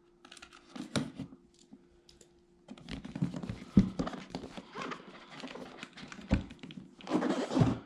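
Cardboard box being handled and its tear-strip tab pulled open: scattered knocks, rubs and scrapes, with a longer rasp near the end.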